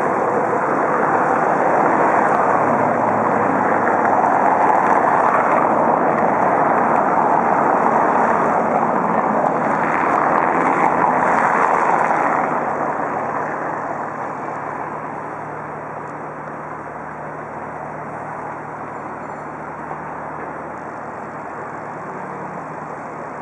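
Road traffic passing: a loud, even rush of vehicles and tyres that fades about thirteen seconds in, leaving a quieter steady hum.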